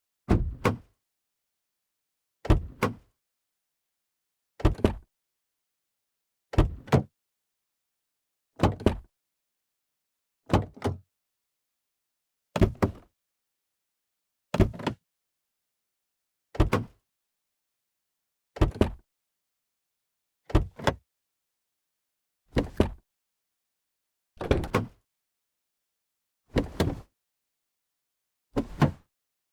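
Car door being opened, heard from inside the cabin: a short latch click followed by a clunk, each take two or three quick knocks lasting about half a second. The take is repeated about every two seconds with silence between, about fifteen times.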